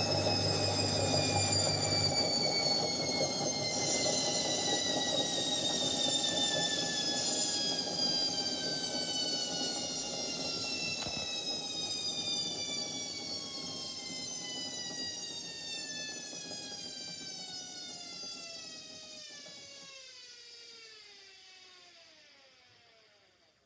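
Indesit 71252 washing machine coming down from a spin: the motor's drive hum cuts out about two seconds in, and the drum coasts with a whine that falls steadily in pitch and fades until it stops at the very end.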